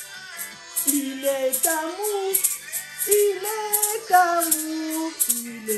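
A high voice singing a worship song to music, with a rattling percussion beat.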